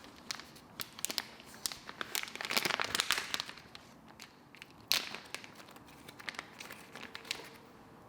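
Crinkling and crackling of something being handled, a dense run of small crackles about two to three seconds in and a single sharp click about five seconds in.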